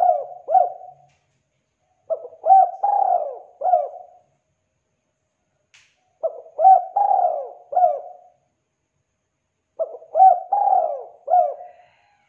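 Spotted dove singing its cooing song. A phrase ends just after the start, then three full phrases follow about four seconds apart, each a quick run of three or four coos lasting about two seconds.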